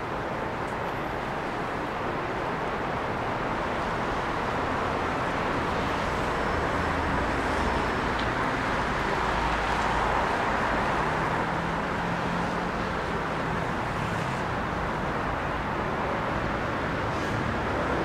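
Steady city road traffic: cars running on a wet, slushy road with tyre hiss, swelling a little about halfway through as vehicles pass close, with a low engine hum under it.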